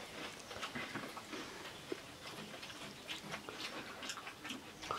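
Faint eating sounds: crisp pani puri shells being cracked and chewed, with scattered small clicks and crackles from mouths and fingers handling the puris.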